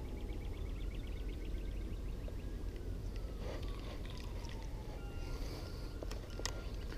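Outdoor ambience with a steady low rumble, the light regular ticking of a spinning reel being cranked during the first second, and a faint drawn-out whine that rises and then slowly falls. A few sharp clicks near the end.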